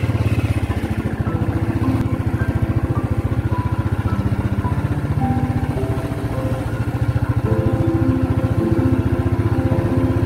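Motorcycle engine running with a steady, even beat while the bike is ridden.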